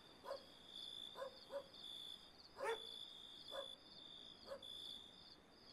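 Faint night ambience: crickets chirping steadily, with about six short, faint dog barks in the distance spaced irregularly.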